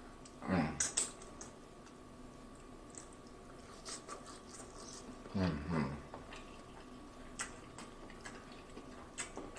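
Close-up eating sounds of a person eating a sauce-coated shrimp: wet lip smacks and sucking clicks scattered through. There are two short humming "mmm" sounds that fall in pitch, about half a second in and again a little after five seconds.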